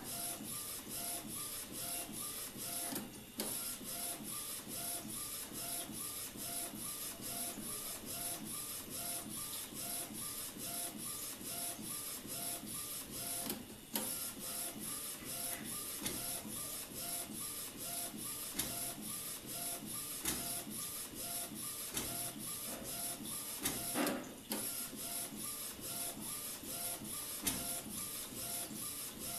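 Desktop A4 UV flatbed printer printing on a TPU phone case, laying down only the colour layer. The print-head carriage shuttles with an even mechanical rhythm of about three strokes a second, broken by a short pause roughly every ten seconds.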